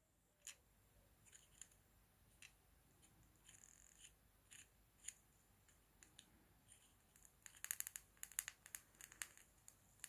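Faint spitting and crackling of solder flux under a soldering iron as solder is built up on the worn electrical contact inside a Toyota Land Cruiser power locking hub. Scattered sharp ticks give way to a dense run of louder crackles near the end.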